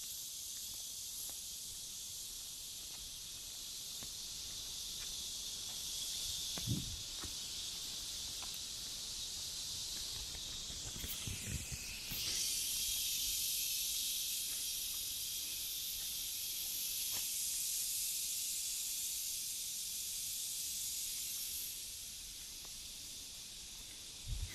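A steady, high, hissing insect chorus that grows louder about halfway through and eases near the end, with a few soft low thumps.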